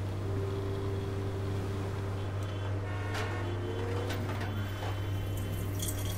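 A low steady hum, with a few sharp clicks of an aluminium beer can being handled in the second half; near the end, beer begins to splash out of the tipped can.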